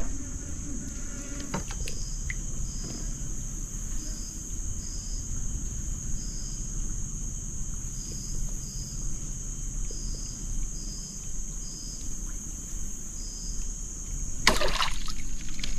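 Insects droning steadily at a high pitch, with a dozen or so short, higher chirps spaced irregularly, over a low background hiss. A short burst of broad noise comes near the end.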